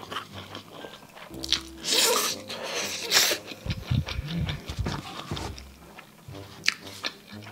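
Biting into a juicy kielbasa sausage and chewing it, with two louder bites about two and three seconds in, over soft background music.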